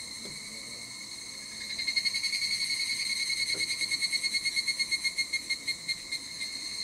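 Insects singing in summer woodland: a steady high-pitched buzz, joined about two seconds in by a louder, rapidly pulsing call that slows and fades near the end.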